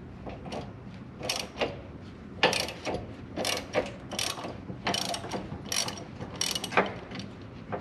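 Hand ratchet with a 16 mm socket turning a Jeep YJ body mount bolt loose: a run of short ratcheting strokes, roughly one every three-quarters of a second.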